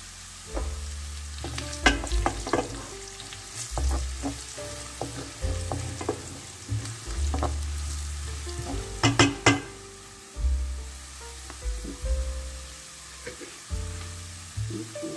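Chicken gizzards, onions and green peppers sizzling in oil in a stainless steel pan while a spatula stirs them. Irregular scrapes and knocks of the spatula on the pan, the loudest about two seconds in and a quick cluster around nine seconds in.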